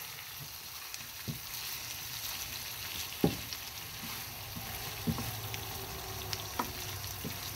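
Spiced beef for kala bhuna sizzling steadily in a pan over a low flame. It is being stirred with a wooden spatula, with a few sharp knocks of the spatula against the pan.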